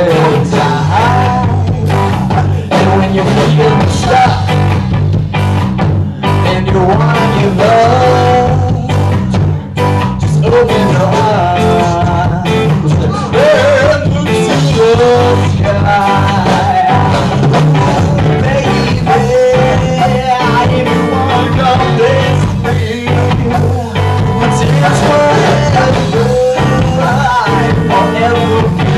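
A live ska band playing loudly: a sung vocal over electric guitar, bass, drums and horns, with a steady driving beat.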